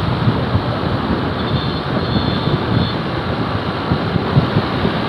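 Wind rushing over the microphone of a moving motorcycle, a steady loud roar with road noise underneath.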